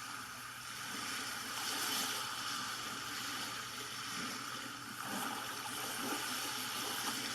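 Ocean-waves track playing through a white noise machine's small speaker: a steady wash of surf that swells and ebbs slowly, with a broad rise about two seconds in.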